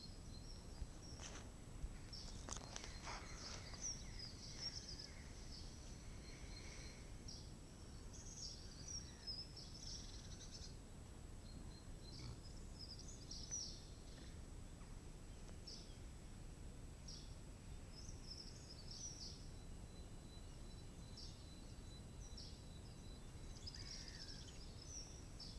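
Small birds chirping on and off, short high calls, over a faint steady low rumble of background noise.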